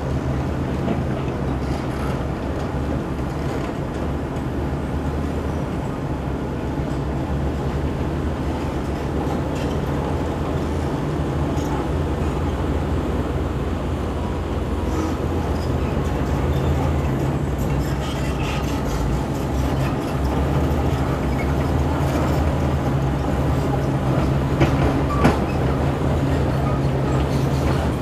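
Diesel engines of a Zoomlion crawler bulldozer and a Hyundai 220LC-9S excavator running steadily, with clanking of the steel tracks and rock being pushed. There is a sharper knock near the end.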